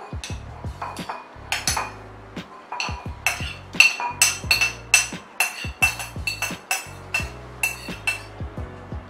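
Glass bowls clinking as a utensil scrapes chopped tomato and onion from one bowl into the other. There are many sharp clinks with a short ringing tone, coming thickest in the middle.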